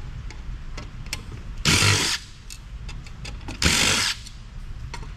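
Handheld power driver run in two short bursts about two seconds apart, amid small clicks of parts and tools being handled.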